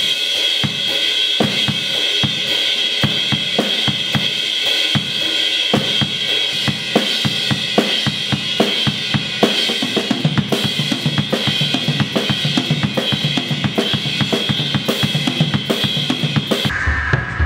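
Acoustic drum kit played with wooden sticks: a busy run of snare, tom and bass drum hits under a continuous wash of cymbals. The sound changes abruptly near the end.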